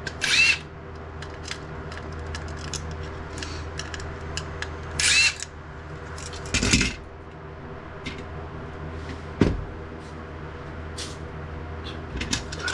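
Electric screwdriver backing screws out of a printer's laser scanner unit in two short whirring bursts, one near the start and one about five seconds in. Between them come small clicks of screws and plastic parts being handled, with a heavier knock about seven seconds in and a sharp click a little after nine seconds.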